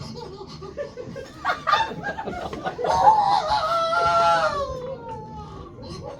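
A man's voice imitating a baby crying and whimpering as it settles at the bottle: short broken cries, then a long wavering wail a few seconds in that slowly falls in pitch and fades.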